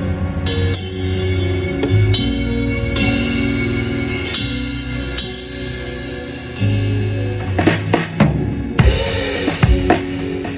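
Live band sound-checking through the PA: a drum kit with cymbal crashes over held bass notes, breaking into a quick run of drum hits over the last three seconds.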